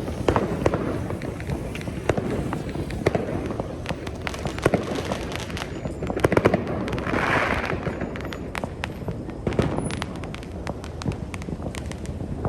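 Fireworks going off in the distance around the listener: a steady scatter of sharp bangs and pops, with a thicker stretch of crackling about seven seconds in.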